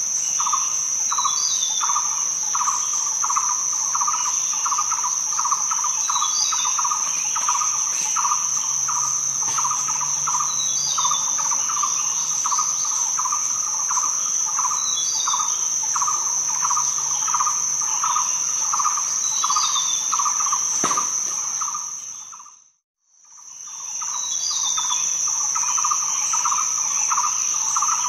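Insect chorus: a steady high cricket trill over a rapidly pulsing lower chirping, with a short bird chirp repeating about every four to five seconds. The whole sound fades out briefly about 23 seconds in and fades back in.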